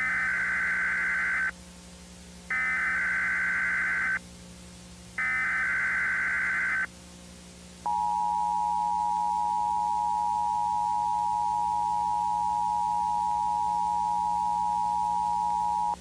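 Emergency Alert System SAME header: three bursts of warbling data tones, each about a second and a half long, encoding a Required Weekly Test alert. About eight seconds in, the steady two-tone EAS attention signal begins and holds for about eight seconds. A faint low hum runs underneath.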